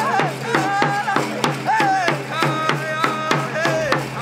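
Indigenous powwow-style drumming and singing: a drum struck at a steady pulse of about four beats a second, with voices singing a wavering, high melody over it.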